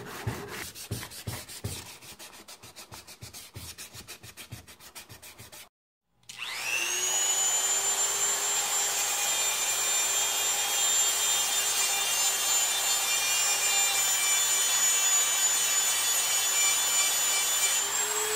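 Hand sanding on a laminated steel blade: quick, even back-and-forth rubbing strokes. Then a handheld rotary tool spins up to a steady high whine and grinds against the steel, its pitch rising slightly near the end.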